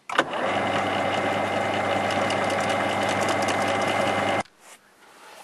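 Metal lathe running as it faces the outer corners of a copper plate clamped to its faceplate: a steady machine hum with a fine crackle over it. It cuts off suddenly about four seconds in.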